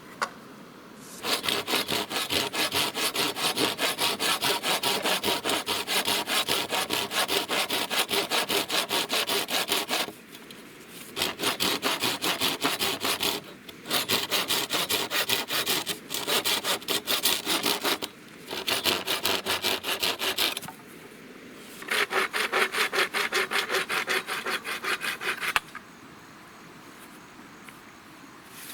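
Hand saw cutting through wood in quick, even strokes. It comes in several bouts of sawing with short pauses between them.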